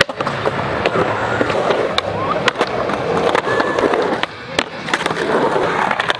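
Skateboard wheels rolling on concrete with trucks grinding along the bowl's metal coping, broken by many sharp clacks and knocks of the board.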